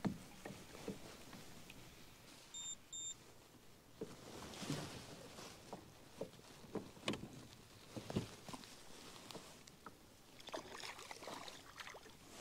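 A kokanee being played up to a kayak: scattered small knocks and clicks of gear against the kayak, then the hooked fish splashing at the surface near the end. Two short electronic beeps come about two and a half seconds in.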